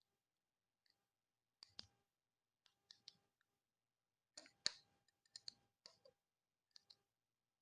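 Faint, scattered clicks and taps of small plastic model-kit parts being handled and pressed together, with the sharpest click about four and a half seconds in.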